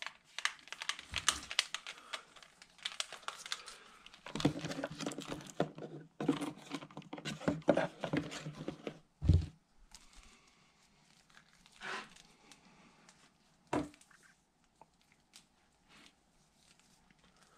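Hands packing a camcorder's cords, charger and manuals into a cardboard box: a dense run of rustling, crinkling and small knocks, with a dull thump about nine seconds in. After that it goes quieter, with only a few separate knocks.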